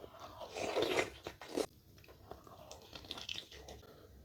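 Close-miked eating: a person biting into crunchy food, loudest in the first couple of seconds, then chewing more quietly.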